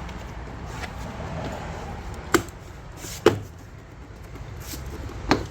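Plastic retaining clips of a 2014 Mazda Miata door panel snapping loose as the panel is pried off the door: three sharp snaps, the second about a second after the first and the third two seconds later.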